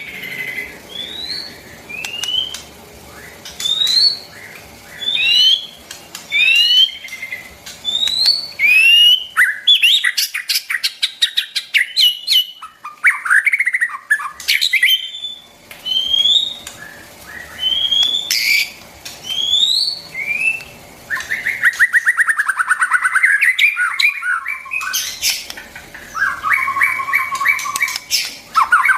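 White-rumped shama singing: a run of clear whistled notes that each rise in pitch, then quicker chattering and trilled phrases, with longer warbling trills in the last third.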